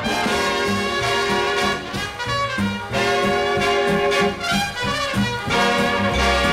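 Background music with brass instruments over a bass line that steps from note to note.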